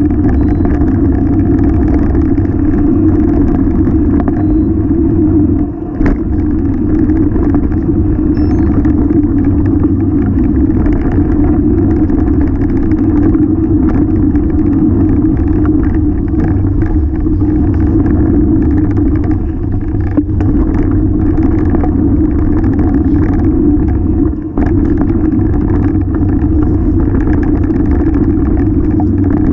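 Hardtail mountain bike ridden fast down a rough dirt trail, heard through a handlebar-mounted GoPro: a loud, steady rumble of wind and vibration, with the tyres on dirt and frequent clicks and rattles from the bike over roots and stones. The rumble drops away briefly twice, about six seconds in, ending in a sharp knock, and again near the end.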